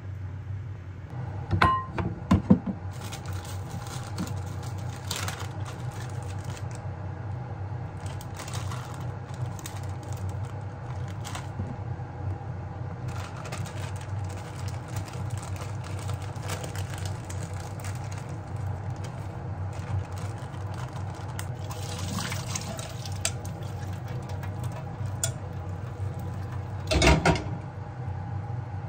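Hand grating on a metal box grater over a glass bowl: bursts of scraping strokes, with knocks and clinks, over a steady low hum. Near the end comes a louder rush as drained pasta is tipped from a metal strainer into the bowl.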